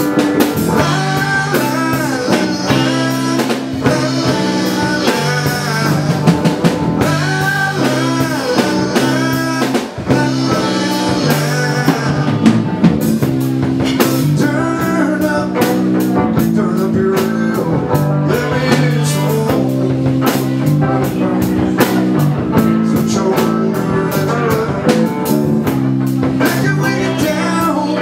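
Live dance band playing a blues-rock number, with lead electric guitar over drum kit and bass.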